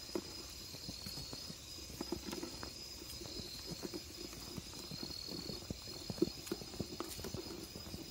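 Footsteps on a wet dirt trail: a steady run of irregular scuffs and crunches from walking downhill. Insects keep up a steady high trill behind them.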